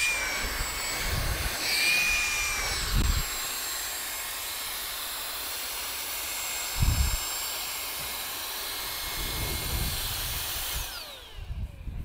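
MooSoo cordless handheld stick vacuum running, a steady rush of air with a high motor whine, with two dull knocks. About 11 seconds in it is switched off and the motor whine falls away as it spins down.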